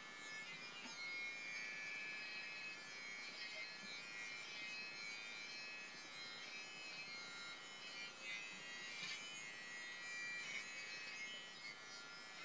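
BaByliss for Men i-stubble beard trimmer running, a steady high-pitched whine, with brief louder rasps as the blades cut through stubble on the chin.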